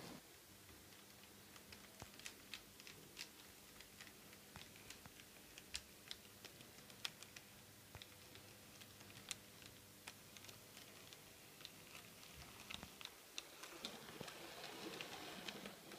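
Quiet, irregular clicks of an H0-scale model diesel locomotive's wheels running over rail joints and points on a model railway, getting a little louder near the end.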